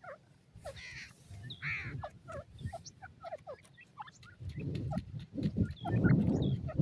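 Partridge chicks peeping, with many short, quick, downward-sliding chirps. From about halfway through, a louder, rough low-pitched rumbling sound comes in under them.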